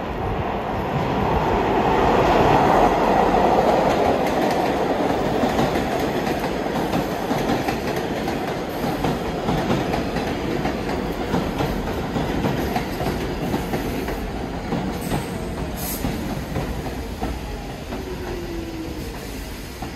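New York City subway train running through the station, its wheels clicking over the rail joints; loudest a few seconds in, then steady, easing off near the end.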